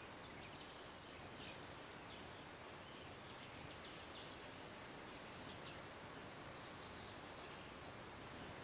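Quiet garden ambience: small birds chirping on and off over a steady high-pitched whine and hiss.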